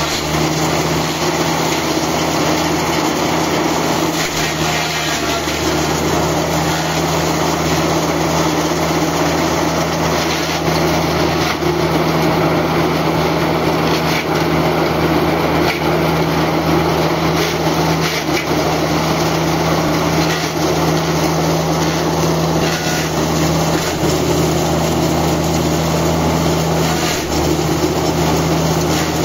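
Electric belt-driven hammer mill grinder running steadily, a constant low hum under a rough grinding noise as it shreds dry crop stalks fed into its hopper, with scattered crackles from the stalks breaking up.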